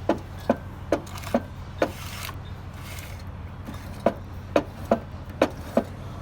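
Sharp knocks, five in quick succession about two a second, a pause of about two seconds, then five more, over a steady low hum.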